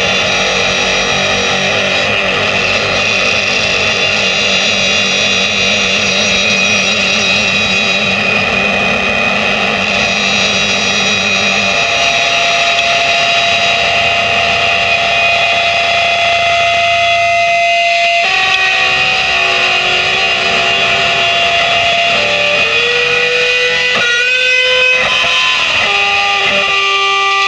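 Instrumental music on distorted electric guitar with effects: sustained droning notes. Partway through, a single higher note is held for several seconds, and near the end the pitch slides up and down.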